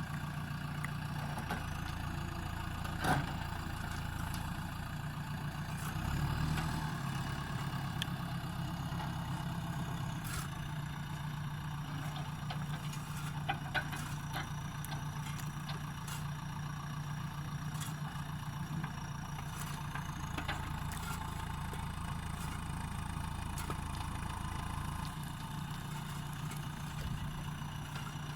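JCB backhoe loader's diesel engine running steadily, with a sharp knock about three seconds in and two quick knocks near the middle.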